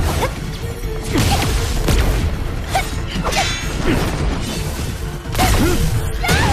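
Layered sound effects of an animated fantasy battle: repeated whooshes and sudden hits over a continuous low rumble, swelling louder about five seconds in.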